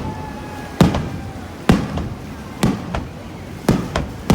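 Aerial fireworks shells bursting, five sharp bangs roughly a second apart, each with a short echoing tail. A faint, slightly falling whistle fades out within the first second.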